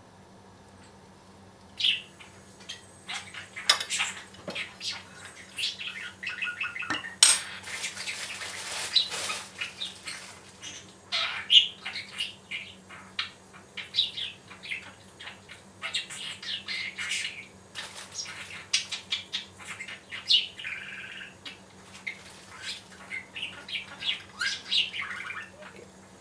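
Knife and cutlery clinking and scraping on ceramic plates as a cake is sliced and a piece is moved onto a plate. Sharp clicks are scattered throughout, with a longer stretch of scraping about seven seconds in.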